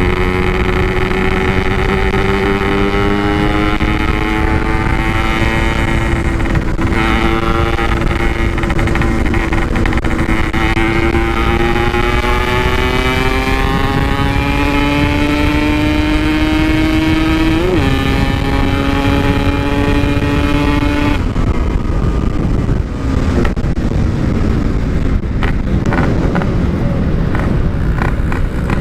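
Yamaha RX-King two-stroke single-cylinder motorcycle engine running under way through a loud aftermarket exhaust, its note climbing slowly. About eighteen seconds in there is a quick blip and the pitch drops as it shifts gear. A few seconds later the engine note fades as the throttle comes off, leaving wind rush.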